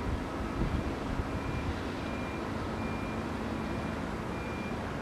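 Reversing alarms on demolition-site machinery beeping, about one and a half beeps a second: a lower-pitched alarm fades out early and a higher-pitched one carries on, both faint over a steady low rumble.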